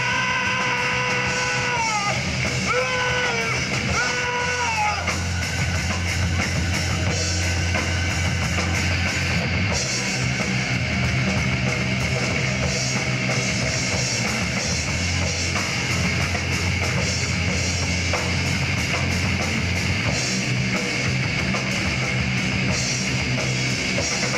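Live rock band playing: electric guitars, bass and drum kit. Over the first five seconds a few long held notes ring out and slide down at their ends before the band carries on.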